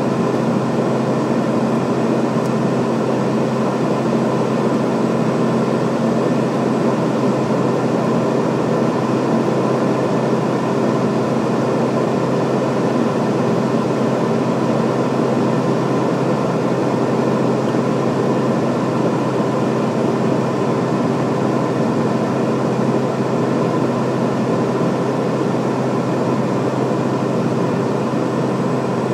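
Beechcraft King Air B200 in flight: its twin PT6A turboprop engines and propellers drone steadily, with a few steady hum tones over an even rush of air noise. There is no change in power.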